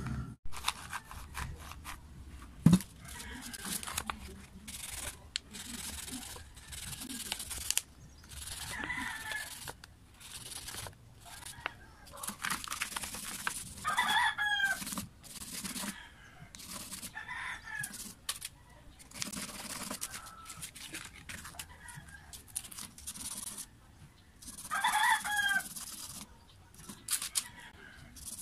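A rooster crows, loudest about halfway through and again near the end, with fainter calls between, over scraping and handling noises from something rubbed on sandpaper. A sharp knock, the loudest sound, comes about three seconds in.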